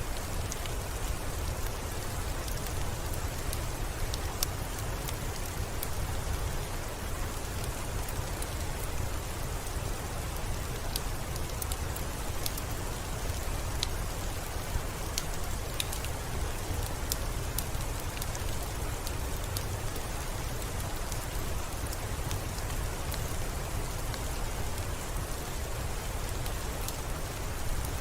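Steady soft rain with scattered sharp crackles and pops from a wood fire in a fireplace.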